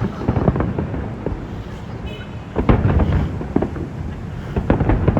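Aerial fireworks bursting in quick succession: a dense run of booms and sharp crackling reports over a rumble. The loudest bursts come about two and a half seconds in and again near the end.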